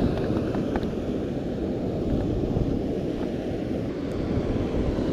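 Wind buffeting the microphone in a steady low rumble, with sea surf beneath it.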